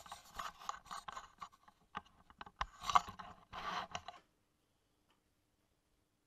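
Metal tools and parts being handled at close range: irregular scraping and clicking that stops about four seconds in.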